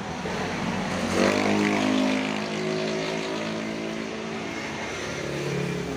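A motor vehicle's engine revs up about a second in, runs at a steady pitch for a few seconds and fades, with a second, lower engine note near the end.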